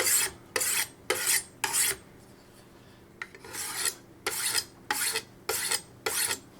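Knife blade stroked across a diamond whetstone: a rasping scrape with each pass, four quick strokes, a short pause, then five more.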